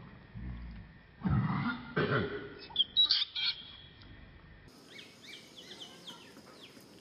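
A cluster of short, loud animal sounds starts about a second in, with high squeaks around three seconds. Birds then chirp in short rising and falling notes.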